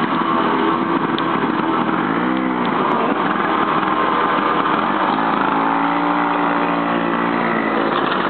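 Vintage Ski-Doo Elan snowmobile's 299cc two-stroke engine running, revved up and back down once about two seconds in, then running steadily.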